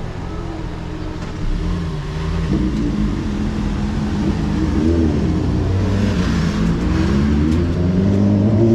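Road traffic moving off once the level crossing barriers lift: several car and motorcycle engines accelerating, their pitch rising and falling, getting louder as a car passes close near the end.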